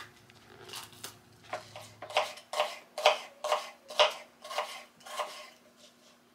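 Kitchen knife slicing through a red onion and knocking on a wooden cutting board, about ten cuts at roughly two a second.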